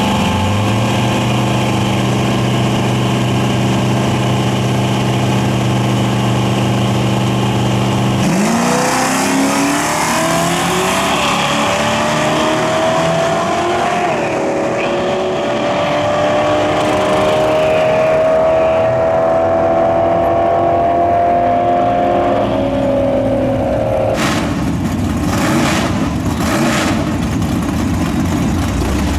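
Drag-race cars, a Fox-body Mustang 5.0 among them, idling at the starting line, then launching at full throttle about eight seconds in. The engine note climbs steadily down the track, breaks once at a gear change, and drops away after the finish. Near the end, other V8s rev in short blips.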